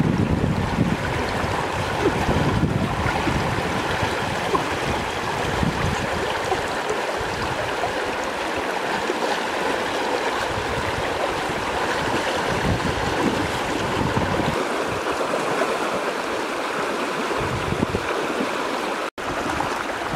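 Fast-flowing floodwater rushing steadily around a person wading through it, with low rumbles of wind on the microphone at times. The sound cuts out for an instant near the end.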